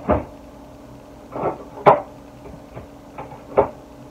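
Kitchen knocks and clicks from someone moving about and handling things off to the side: about half a dozen separate knocks, the sharpest a crisp click about two seconds in, over a faint steady hum.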